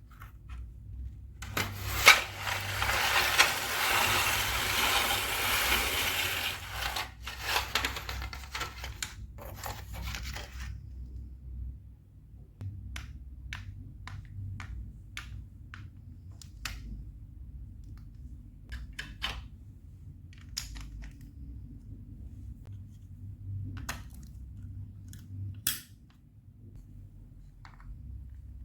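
Glass marbles rolling and clattering down plastic Lego Duplo block tracks: a dense rattle of many marbles for several seconds, thinning out, then scattered single clicks and taps as marbles drop and knock against the blocks.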